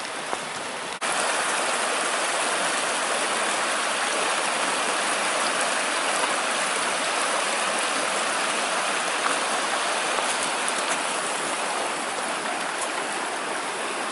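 Shallow creek running over rocks: a steady rush of water, louder from about a second in.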